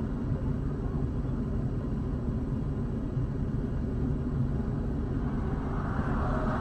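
Steady low rumble of highway traffic at the roadside, with a hissing swell building near the end.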